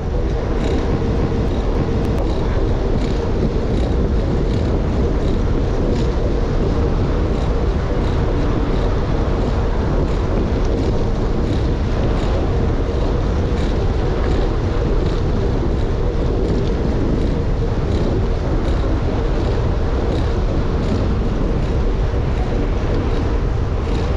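Wind rushing over the camera microphone with rolling tyre noise from a gravel bike in motion, a steady loud rumble. A faint regular ticking runs through it.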